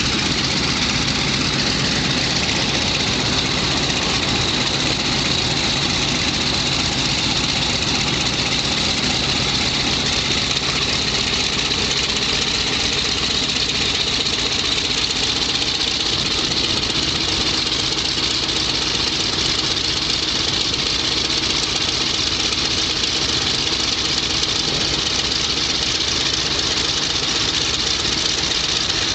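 Piston engines of World War II fighter aircraft running at idle, a steady, unbroken drone.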